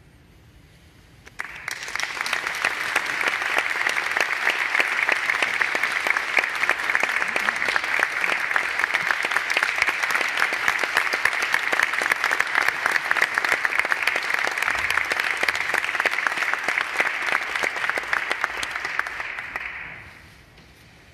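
Audience applauding: after a brief hush, clapping breaks out about a second in, holds steady, then dies away near the end.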